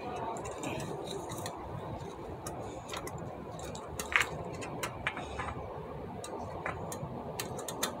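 Scattered light metallic clicks and ticks from a spoke wrench turning a spoke nipple and knocking against the wheel's steel spokes, as a newly fitted replacement spoke is tightened.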